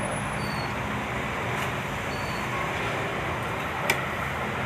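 Steady background rumble and hiss with a low hum, with one sharp click about four seconds in.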